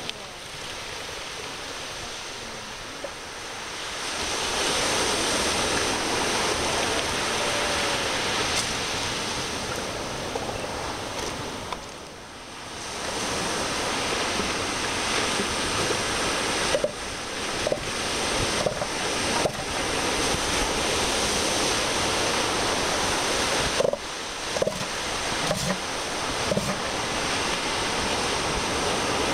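Steady rush of Pacific surf and wind on the microphone. In the second half there are a few short animal calls from the elephant seal colony and some brief knocks.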